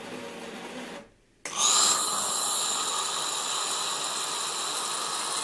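Cecotec Matic-Ccino 7000 coffee machine frothing milk with steam for a latte: a loud, steady hiss with a high whistling tone as hot milk foam pours into the glass. It is preceded by a short, lower machine hum that breaks off about a second in.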